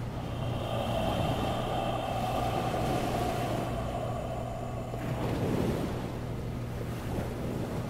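Ocean surf and wind ambience with a low steady hum, a held tone through most of the first five seconds, and a wave washing in about five seconds in.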